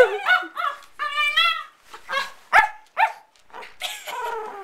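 Pug–chihuahua mix puppy making high-pitched play noises: a string of short whines and yips, with a longer whine near the end. These are play sounds, not anger.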